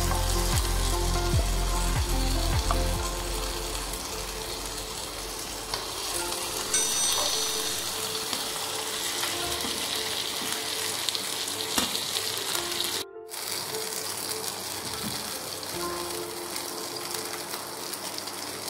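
Masala-coated croaker fish shallow-frying in coconut oil in a pan: a steady sizzle, with a spatula scraping and turning the fish now and then. The sound cuts out briefly about two-thirds of the way through.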